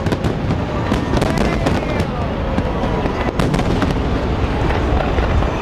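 Aerial fireworks shells bursting in rapid succession, sharp bangs and crackle overlapping on a continuous low rumble with no pause.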